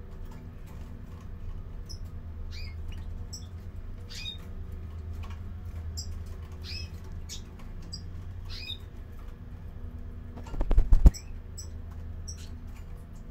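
Caged European greenfinches giving short high chirping calls, scattered through, some sliding downward in pitch, over a steady low hum. About three-quarters of the way through there is a brief loud bump.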